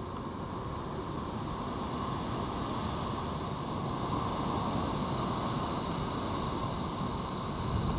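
Steady outdoor rushing noise, getting slightly louder about halfway through, with no distinct sounds standing out.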